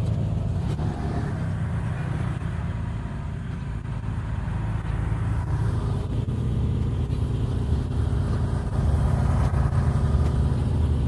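Kubota L2501 compact tractor's three-cylinder diesel engine running steadily under load as the tractor moves and pushes dirt with its front loader bucket. It grows a little quieter partway through and louder again near the end as the tractor comes back close.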